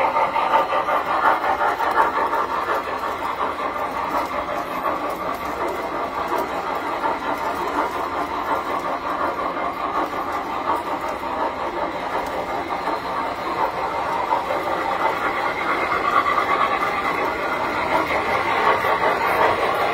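Tinplate model train running on its metal track: a steady metallic rumble and clatter of wheels and motor, a little louder near the end.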